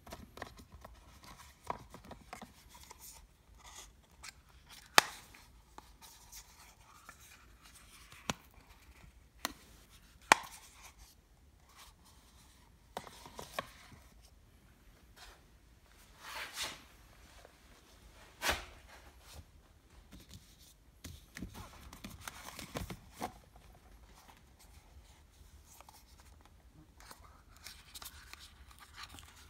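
Paperboard eyelash boxes handled by hand: scattered sharp clicks and taps, a few loud, between spells of soft sliding and rustling of the cardboard.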